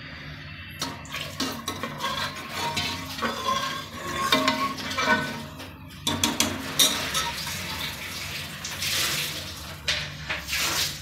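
Metal ladle stirring a thin mutton masala in an aluminium pressure cooker: repeated scraping and clinking against the pot, with the liquid sloshing. A steady low hum runs underneath.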